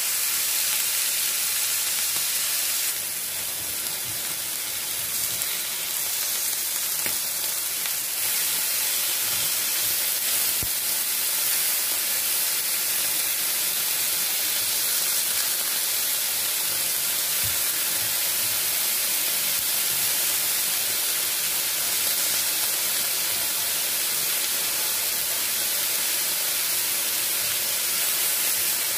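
Marinated chicken breast strips sizzling steadily in hot oil in a nonstick frying pan.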